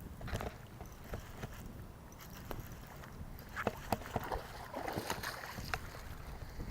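Wind buffeting the microphone with a low rumble, with scattered light clicks and ticks throughout.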